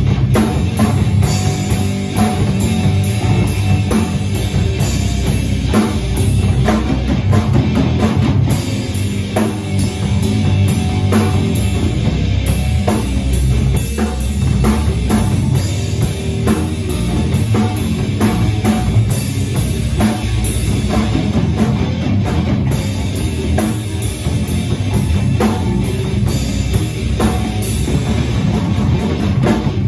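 A rock band playing live: drum kit and guitar, loud and steady.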